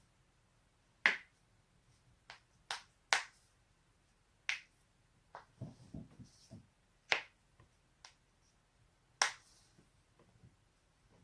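Neck and back joints being cracked: a series of sharp, separate pops, about eight loud ones at irregular intervals, with softer clicks and rustling of movement between them.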